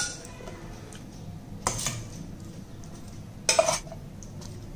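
A spoon scraping and clinking against a stainless-steel mixer-grinder jar as roasted urad dal and sautéed pirandai with chillies are tipped in. There are short sharp clinks near the start and a little under two seconds in, and the loudest comes about three and a half seconds in.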